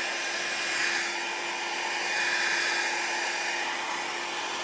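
Revlon 500-watt styling-brush hair dryer running steadily, blowing alcohol ink across plastic: a continuous rush of air with a faint steady whine.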